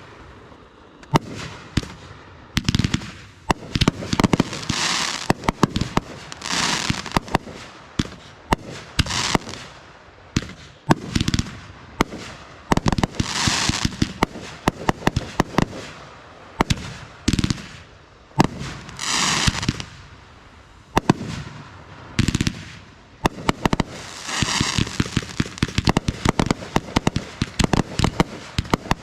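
Aerial fireworks show firing: a rapid, irregular string of sharp bangs, with about half a dozen swells of high crackling hiss, each lasting about a second, spread through it.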